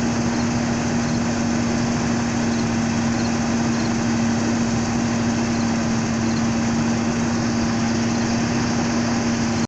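Carbureted gasoline engine of a 1981 Chevrolet-chassis Itasca motorhome idling steadily with a constant hum, running on fresh gas through a new tank and fuel lines; it sounds a lot better than it did with the old gas.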